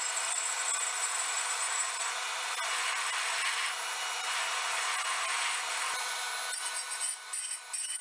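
Abrasive dressing stone held by hand against a spinning surface-grinder wheel: a steady gritty hiss over a high, steady whine, roughing off the wheel's formed profile to square its edge. About six and a half seconds in, the grinding gives way to a rapid on-off pulsing.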